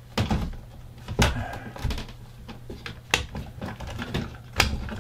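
A plastic electrical box being worked into a drywall cutout, knocking and clicking sharply against the wall about five times.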